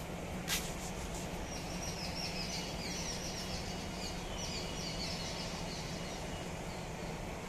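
Small birds chirping in a quick high twittering run over a steady low hum, with one sharp click about half a second in.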